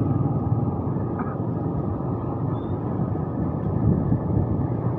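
Motorcycle being ridden along a street: a steady engine drone mixed with road and wind rumble.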